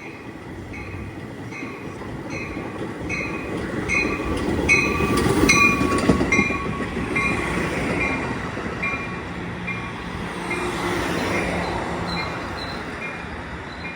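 A train passing with its wheels rumbling on the rails, loudest about five or six seconds in. A bell clangs steadily about two to three times a second throughout.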